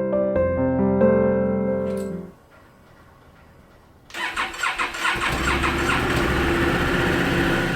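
Soft piano music ends about two seconds in; about four seconds in a motorcycle engine is cranked and catches, running with a low rumble.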